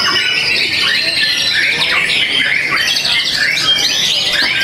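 Several white-rumped shamas (murai batu) singing at once: a dense, unbroken mix of overlapping whistles, trills and chattering calls.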